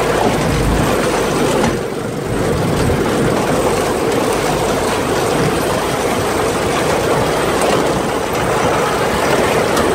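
Off-road buggy driving over a rough dirt track, heard from on board: steady engine noise mixed with road and chassis noise from the bumpy ground, dipping briefly about two seconds in.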